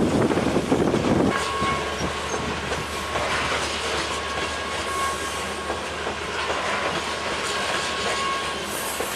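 A freight train's open-top hopper cars rolling past, steel wheels clacking over the rail joints, with a thin steady high-pitched ring over the roll. The first second is a louder rumble that cuts off abruptly.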